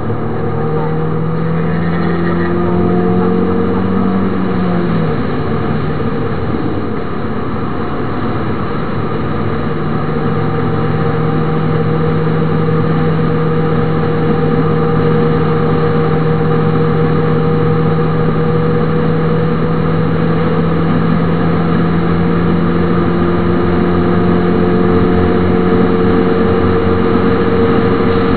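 MINI Cooper S four-cylinder engine under track driving, heard inside the cabin: the note climbs briefly, drops with an upshift about five seconds in, then holds steady. Tyre and road noise run underneath.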